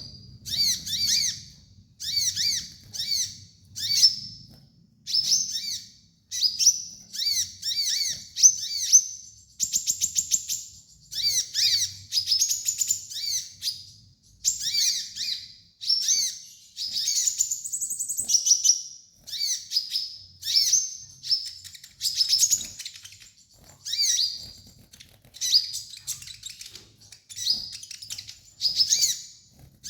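Kolibri ninja sunbird singing: short, high, thin phrases of quick up-and-down whistled notes repeated about once a second, broken near the middle by a fast buzzy trill and a long rising-and-falling note.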